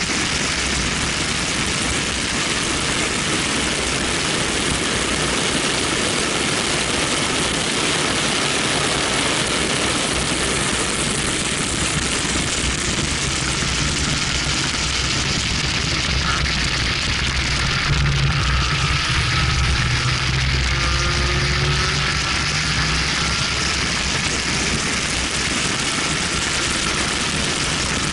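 Heavy wind and road noise on an outside-mounted camera at track speed, with the BMW 1M's twin-turbo straight-six running underneath. About halfway through, the engine's pitch climbs as the car accelerates out of a corner.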